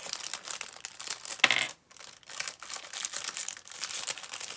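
Thin plastic Lego minifigure packet crinkling and rustling as it is handled and the pieces are taken out, with small clicks of plastic parts. The loudest crinkle comes about one and a half seconds in, followed by a brief pause.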